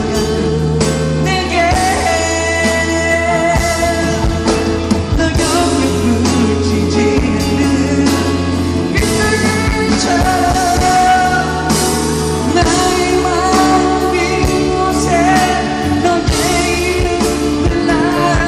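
A man singing a ballad live into a handheld microphone, holding long, bending notes over instrumental backing with a sustained bass line.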